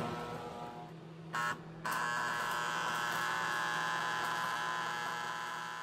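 Miller Thunderbolt 225 transformer arc welder humming. About a second in a welding arc is struck briefly, then struck again and held, giving a loud steady buzz with crackle.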